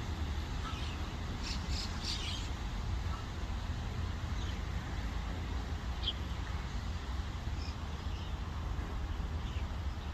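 Short, high bird calls here and there, a cluster of them about two seconds in, over a steady low rumble.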